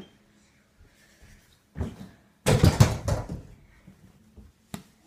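A small rubber basketball bangs against an over-the-door mini hoop, with a loud rattling clatter of backboard, rim and door lasting under a second, after a softer thud just before it. A single sharp knock comes near the end.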